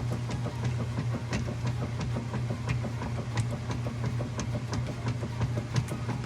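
Kenmore top-load washing machine agitating a load in water: a steady motor hum with frequent irregular clicks. Its agitator dogs are newly replaced, so the agitator is catching and driving properly again.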